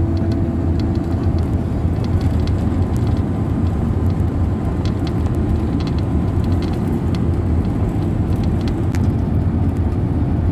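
Steady engine drone and road noise heard from inside a moving long-distance coach, with small clicks scattered throughout.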